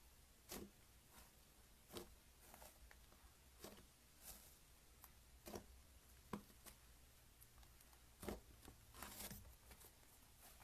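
Slime handled by hand, giving faint short sounds, about eight spaced irregularly, with a slightly longer one near the end.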